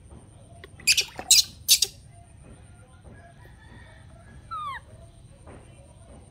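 Three short, loud splashes of water in a plastic basin about a second in, as a baby monkey is bathed by hand. Near the middle comes one short squeak that falls in pitch.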